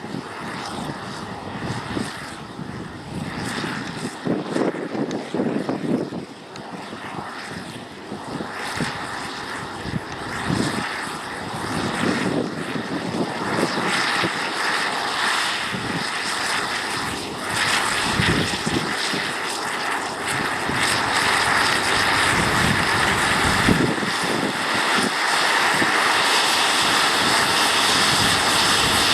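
Tractor engine running under load in the field, growing louder toward the end.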